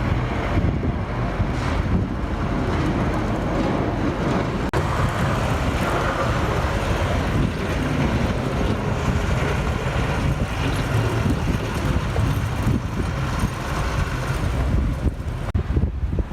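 Steady rumble of street traffic mixed with wind noise, with no clear single event.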